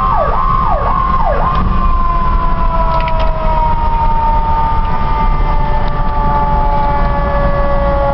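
Ambulance electronic sirens heard from inside the cab: a fast yelp that stops about a second and a half in, then a long tone sliding slowly down in pitch, the eQ2B's imitation of a mechanical siren winding down. Engine and road rumble run underneath.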